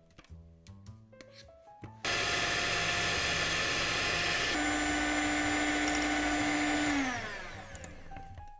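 Electric hand mixer switched on about two seconds in, its beaters running steadily through thick chocolate cream-cheese batter in a glass bowl. It is switched off near the end, the motor's pitch falling as it spins down. Soft background music with plucked notes is heard before it starts and after it stops.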